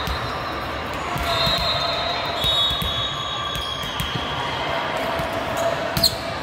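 A hand striking a volleyball on a serve: one sharp smack about six seconds in, over the murmur of voices in a large, echoing gymnasium.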